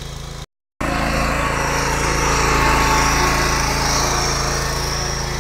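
Small air-cooled petrol engine of a power tiller running steadily under load as it tills soil. The sound drops out for a moment about half a second in, then carries on, growing a little louder in the middle.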